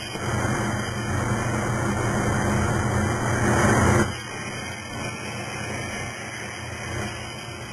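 Plasma arc of a Techno HPLC CNC plasma cutting table hissing with a low hum as it cuts metal plate. It starts loud just after the beginning, rising to its loudest, then drops suddenly about four seconds in to a quieter steady hiss as the cut carries on.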